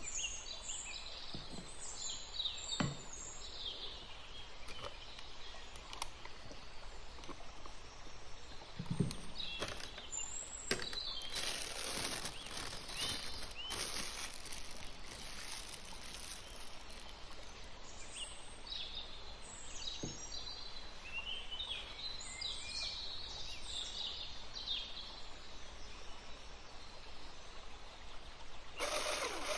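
Kitchen handling sounds: a spatula scraping a glass bowl and a plastic piping bag crinkling as it is squeezed, with high bird chirps in the background. Just before the end an electric hand mixer starts, running with a steady whir.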